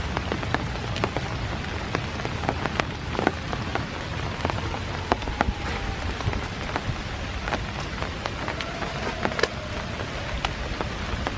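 Steady rain falling, with many sharp ticks of individual drops landing close by.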